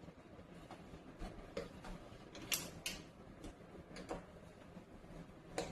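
Irregular light clicks and ticks of a Phillips screwdriver tightening the screws of a doorknob set, metal on metal, with two louder clicks about halfway through.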